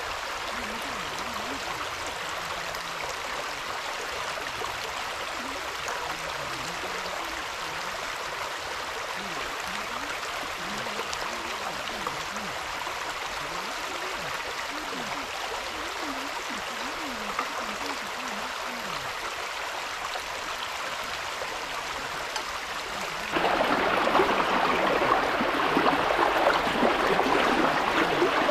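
Small forest river flowing: a steady rush of water. Near the end it jumps suddenly louder and fuller.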